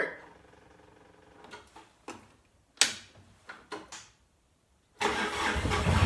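A few sharp clicks, then about five seconds in a Cat mini excavator's diesel engine cranks and catches, running on loudly.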